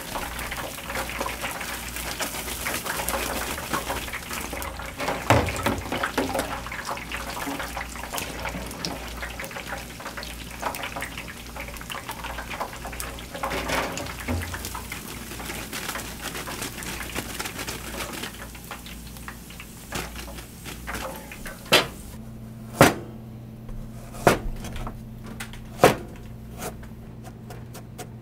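Battered pork pieces deep-frying in hot oil, a dense crackling sizzle that thins out after about eighteen seconds. Near the end come four sharp, spaced knocks of a cleaver striking a cutting board.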